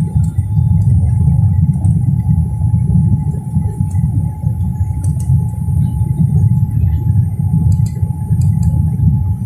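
Steady low roar of airliner cabin noise: the jet engines and the rush of air along the fuselage heard from a window seat, with a faint steady whine above the rumble.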